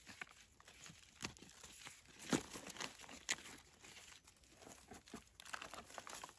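Faint, irregular dry rustling and crackling, with sharper cracks about two and a half and three and a half seconds in.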